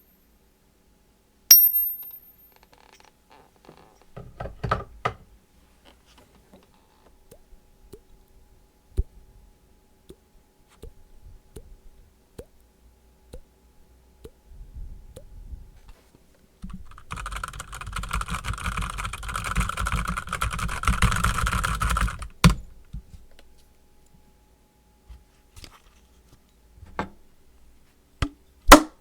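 Mouth sound effects: a string of sharp clicks and pops, a brief high ding near the start, and a hiss lasting about five seconds in the middle.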